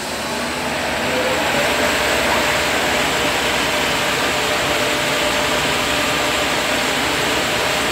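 A 25-horsepower vacuum pump is running and holding suction on a CNC router's vacuum table. It makes a steady, even rushing noise with a faint hum, which grows a little louder about a second in and then holds level.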